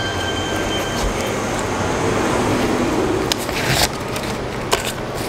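Steady background noise of a shop counter with street traffic in it, with a few sharp clicks and taps about three and a half seconds in and again near the end.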